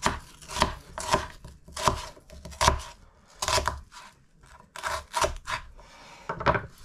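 Kitchen knife coarsely chopping an onion on a wooden cutting board: a run of sharp knocks as the blade cuts through and hits the board, in uneven groups with short pauses between.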